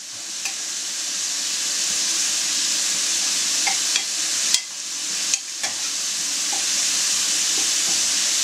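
Chopped onion sizzling steadily in sunflower oil in a frying pan, with a few light clinks of utensils.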